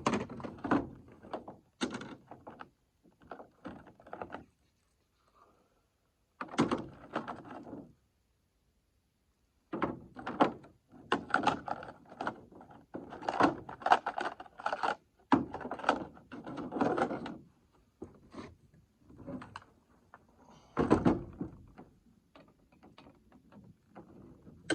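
Irregular metallic clicks, clanks and knocks of hand work on a chainsaw's bar and chain during a chain swap, with a pause of a couple of seconds in the middle.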